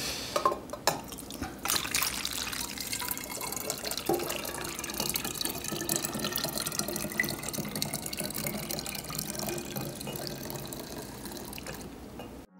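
Kombucha pouring steadily from a glass jar through a stainless steel funnel into a glass swing-top bottle, the pitch of the stream slowly rising as the bottle fills. A few knocks of glass and metal come in the first couple of seconds before the pour settles.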